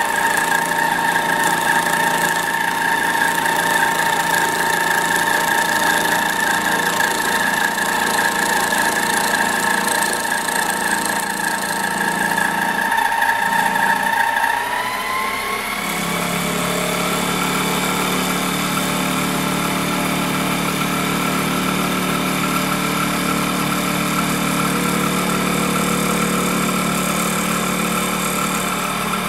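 Harbor Freight mini metal lathe running with a steady, high motor whine. About halfway through, the whine rises in pitch and settles into a new steady tone with a stronger low hum underneath, as the spindle speed changes.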